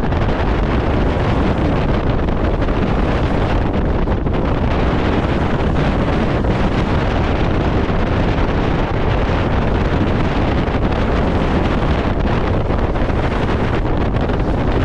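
Wind buffeting the microphone over the steady rush of bow spray and water along the hull of a 60-foot Symbol motor yacht running through choppy seas.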